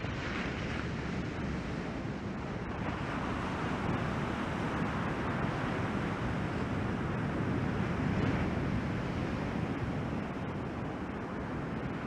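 Waves breaking on the beach, a steady rushing noise that swells toward the middle and eases off, with wind buffeting the microphone.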